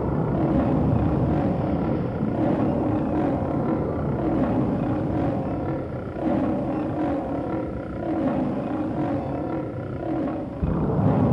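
Monster sound effect: deep, animal-like roaring and growling that swells and eases in waves.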